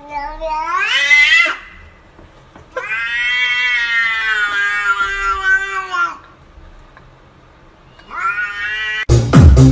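Domestic cat yowling in three drawn-out calls: the first rises steeply in pitch, the middle one lasts about three seconds, and a short rising one follows. Electronic dance music cuts in loudly just before the end.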